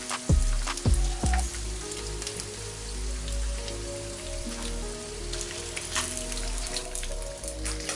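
Hot oil crackling and sizzling around chicken wings deep-frying in a pan, a dense patter of small pops. Background music plays over it, with three deep drum beats in the first second and a half, then a slow held melody.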